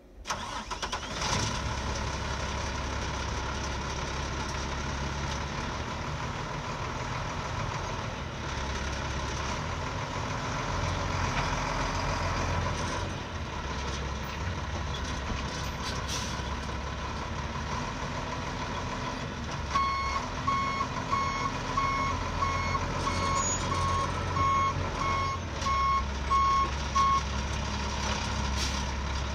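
1995 International 4900 dump truck's diesel engine idling steadily. About two-thirds of the way through, its reversing alarm sounds, beeping about twice a second for several seconds.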